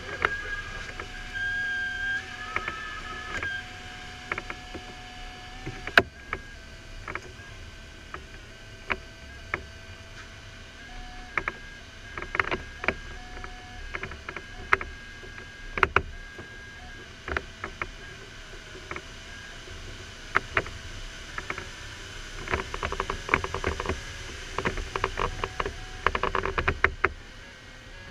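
Steady airflow hiss in an LS4 glider's cockpit, with the electronic variometer's steady beeping tones stepping up and down in pitch. Irregular sharp clicks sound throughout and come thick and fast near the end.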